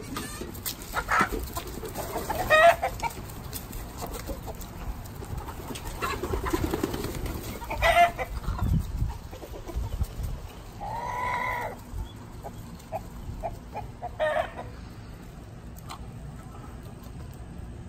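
A flock of chickens, hens and a rooster, calling with a string of short clucks and squawks; a little past the middle comes one longer held call lasting about a second.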